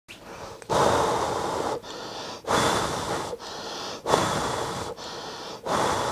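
Someone blowing hard on a hot soldering iron tip to cool it down: four long puffs of breath, each about a second, with quieter in-breaths between.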